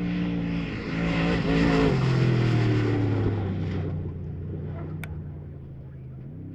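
Off-road race vehicle's engine pulling hard, stepping through a couple of pitch changes, then holding one lower, slowly falling note as it fades into the distance. A single sharp click about five seconds in.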